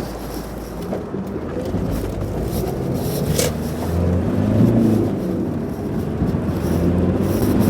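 Interior sound of a Rover 25's 2.0-litre L-series turbodiesel four-cylinder running as the car moves slowly, with a deep low rumble dropping away about a second in and the engine hum growing a little stronger in the second half. No whine is present.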